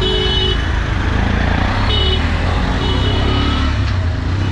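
Close-range street traffic: auto-rickshaw engines running in a slow jam, a steady low rumble. Over it come short, high-pitched tones three times.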